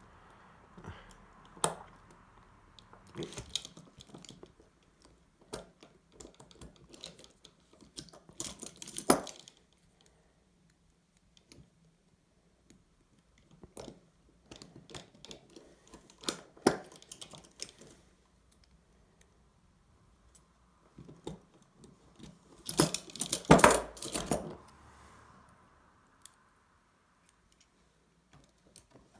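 Steel handcuffs clicking and rattling as a double-ended handcuff shim is worked into them, in several short bursts of metal clicks with quiet gaps between.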